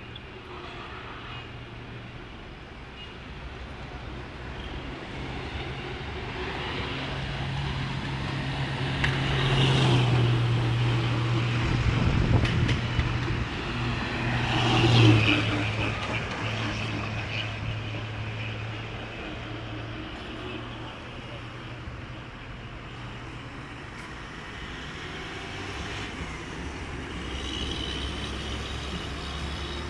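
Diesel engines of Tata cab-chassis trucks driving past. They grow louder to pass close about ten and fifteen seconds in, then fade, and rise a little again near the end.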